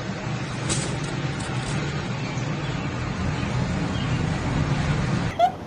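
Steady rumble of a running vehicle with road noise, cut off abruptly near the end by a few short pitched calls.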